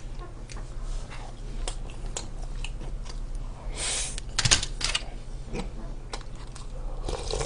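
Eating sounds: chopsticks and a spoon clicking against plastic and paper food containers, light chewing, and a short slurp about four seconds in.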